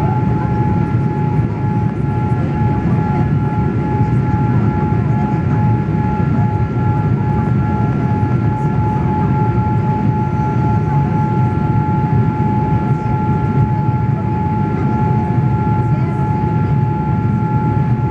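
Boeing 787 Dreamliner cabin noise in the climb after take-off: the steady, even noise of the engines and rushing air, with a steady high whine held on two pitches over it.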